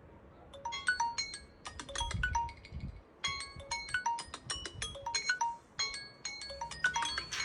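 Smartphone alarm tone playing through the phone's speaker. It is a short marimba-like melody of struck notes that starts about half a second in and repeats about every two and a half seconds.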